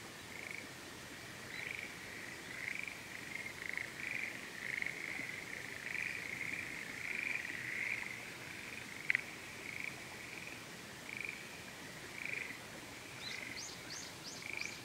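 A chorus of frogs calling from planted rice paddies: repeated croaking notes that grow denser and louder through the middle and thin out toward the end. A single sharp click about nine seconds in, and a quick run of short high notes near the end.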